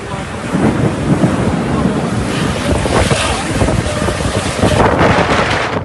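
Heavy rain pouring down, with wind buffeting the microphone in a low, uneven rumble; it grows louder about half a second in.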